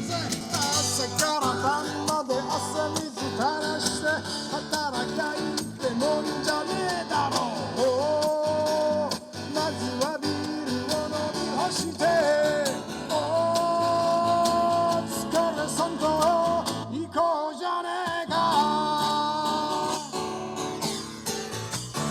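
A man singing to his own acoustic guitar, a Gibson J-200, holding several long notes over steady strumming. The guitar backing drops out briefly about three quarters of the way through.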